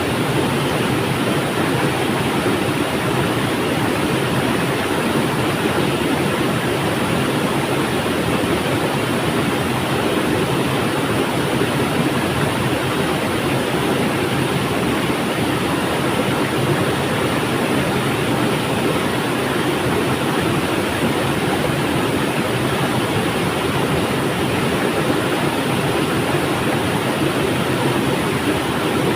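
River water flowing, a steady rushing with no breaks or changes.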